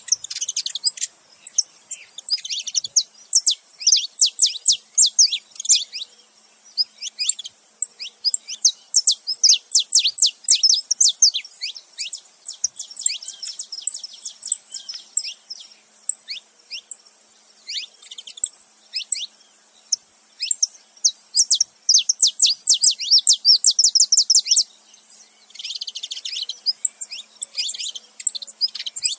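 Saffron finches, male and female, chirping and singing together: rapid runs of high, downward-sweeping chirps in bursts, with a short buzzy stretch near the end.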